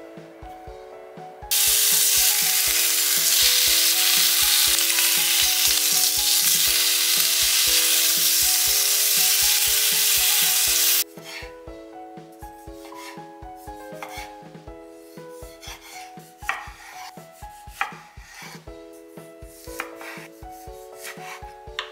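Bacon sizzling loudly in a rectangular tamagoyaki pan, starting abruptly about a second and a half in and cutting off about eleven seconds in. After it, a chef's knife knocks on a wooden cutting board a few times while slicing a sudachi, over light background music.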